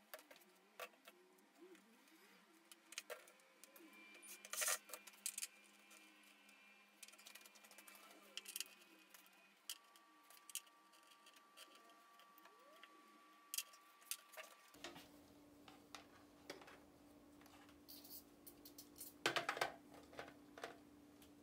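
Scattered light clicks and taps of small parts and a cable being handled on a panel, over a faint steady background hum.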